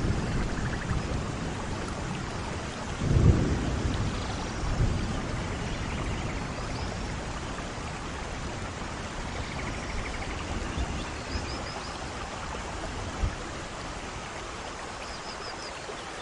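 Steady rainfall with rolling thunder; the loudest rumble comes about three seconds in and a weaker one follows a couple of seconds later. A short, sharp low thud comes later on.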